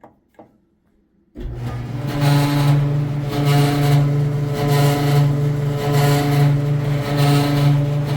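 Two clicks, then a Samsung front-load dryer starts about a second and a half in and runs loudly: a steady motor hum under a grinding noise that swells in a regular beat about once every second and a bit. The owner suspects the motor's idler wheel, or worn bushings or bearings on one of the drum's support wheels.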